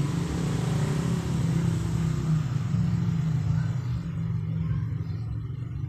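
A motor vehicle's engine running nearby, a steady low drone that fades toward the end.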